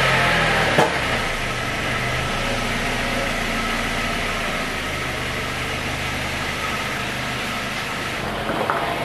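A 1997 Honda Integra's engine idling as the car creeps backward in reverse under its newly fitted automatic gearbox. A short sharp knock comes about a second in.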